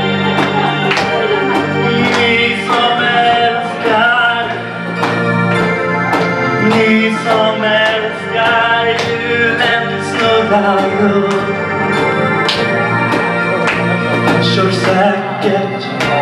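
Live song: a voice singing into a microphone over sustained electric-organ chords from a keyboard and a steady drum beat of about two hits a second.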